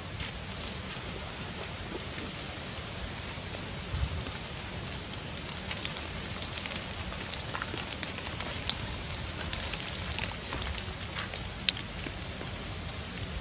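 Outdoor ambience: a steady hiss with scattered light crackles and ticks from about five seconds in to near the end, like dry leaves under small footsteps, and one short high chirp about nine seconds in.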